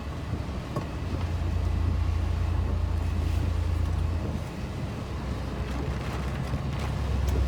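Large truck's diesel engine droning low, heard from inside the cab while driving, with road noise over it. The drone eases off around the middle and builds again near the end.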